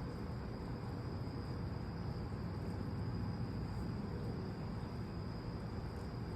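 Night insects, crickets or katydids, keeping up a steady high trill over a low, even background rumble. No thunder is heard.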